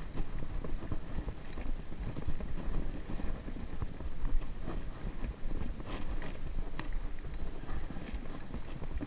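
Mountain bike riding over a dirt singletrack: a steady rumble of tyres on dirt and wind on the microphone, with frequent short clicks and rattles as the bike goes over bumps.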